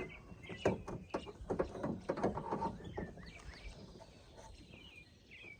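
Scattered light clicks and knocks from a door-handle bracket being fitted back inside a 2004 Honda Civic's rear door, busiest in the first half. A small bird chirps repeatedly in the background.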